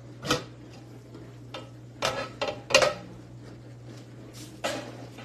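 The lid of a speckled enamelware stockpot being handled and lifted off: about five sharp clanks and knocks of metal on metal, some ringing briefly, the loudest a little under three seconds in.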